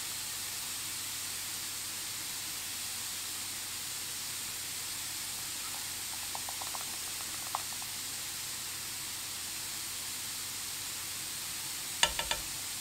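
Cauliflower fried rice sizzling steadily in a non-stick frying pan. A few light ticks come about six to seven and a half seconds in as garlic powder is shaken over it, and near the end a spatula starts stirring in the pan with a quick run of clicks.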